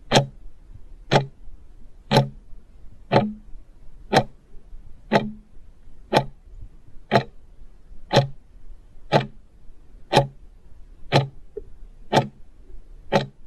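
Clock ticking about once a second, fourteen even ticks: a ticking-clock countdown sound effect timing a quiz question.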